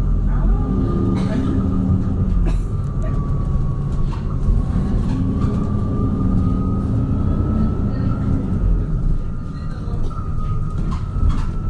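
MAN Lion's City Hybrid city bus running, with a steady low rumble, an engine drone that comes and goes, and a thin whine that dips slightly in pitch and rises again near the end.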